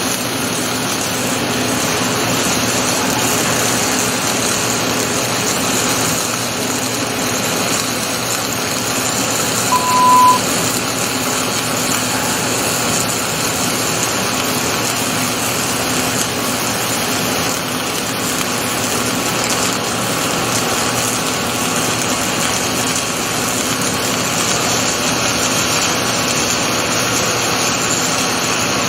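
Rotoweld 3.0 automated pipe spool welding machine at work: a steady hiss and hum, with one short high beep about ten seconds in.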